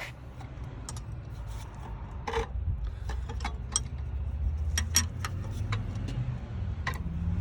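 Wrench work on a spring compressor: irregular metallic clicks and rubbing over a low steady rumble that grows louder a couple of seconds in.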